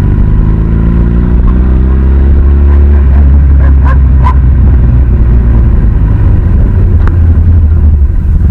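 Motorcycle engine heard from the rider's seat, rising in pitch as it accelerates for about three seconds, then running steadily at cruising speed with a low wind rumble. Two short sharp sounds cut through about four seconds in.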